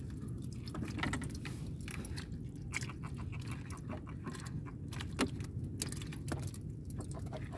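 Small clicks, ticks and rustles of hands working with fishing tackle (line, hook and bait), with a sharper click about five seconds in, over a steady low rumble.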